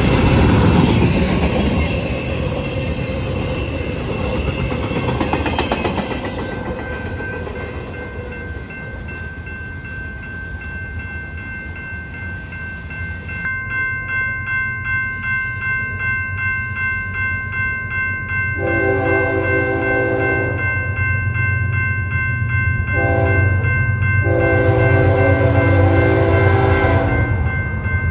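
A double-stack intermodal freight train rumbles and rattles past a grade crossing, with the crossing bell ringing. In the second half, the crossing bell clangs about twice a second as an approaching BNSF freight locomotive sounds its horn: a long blast, a short one, then another long blast.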